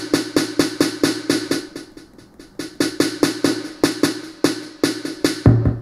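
Drum-machine beat from Maschine's 808 Kit (808-style kick, snare and hi-hats) playing a quick, even pattern. Its volume dips about two seconds in and comes back up as the group's level is moved from a MIDI Designer slider.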